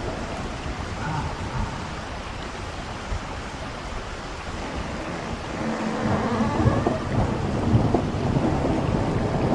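Thunderstorm ambience: steady rain with rolling thunder, the rumble swelling louder about six seconds in.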